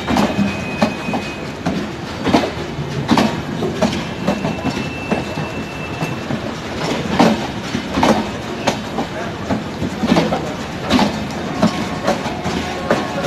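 Passenger coaches of a departing express train rolling past, their wheels clacking over rail joints in a steady run of knocks, over a continuous rumble with a faint thin squeal now and then.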